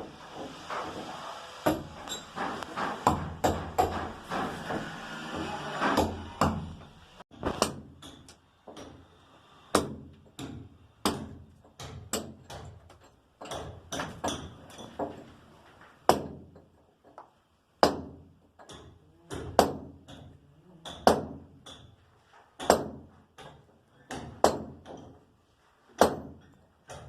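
Repeated hammer knocks, single sharp strikes about once a second at an uneven pace, with a busier clatter of overlapping knocks in the first six seconds.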